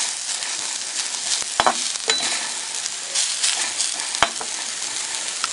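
Chopped ridge gourd peel and a green chilli sizzling steadily in hot oil in a kadai on low flame, with a spatula knocking against the pan a few times as they are stirred.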